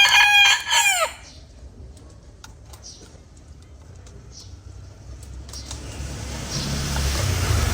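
A rooster crowing once, loud and ending in a falling tail about a second in. Later a low rumble builds near the end, like a vehicle approaching.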